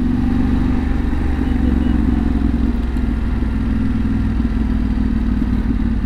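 Yamaha Ténéré 700's parallel-twin engine running steadily at low speed as the motorcycle rides along a narrow lane.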